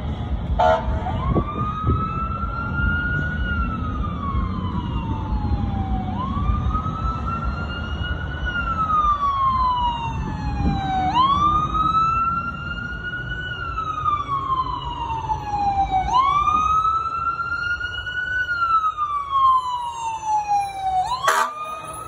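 Fire engine's siren on wail, each cycle rising quickly and falling slowly, repeating about every five seconds, over a low rumble of city traffic.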